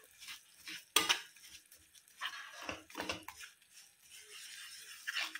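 Spatula scraping and knocking against a non-stick kadhai while lumps of jaggery are stirred in ghee to melt into syrup. Irregular scraping strokes, with one sharp knock about a second in.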